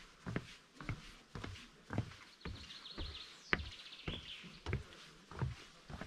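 Footsteps of a person walking steadily, about two steps a second. A small bird gives a high, rapid trill about two and a half seconds in, and a short call just after.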